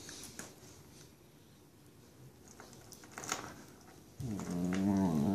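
Two German shepherd puppies play-biting: soft scuffling and mouthing noises with a few clicks, then about four seconds in one wavering, pitched play growl lasting about a second, the loudest sound.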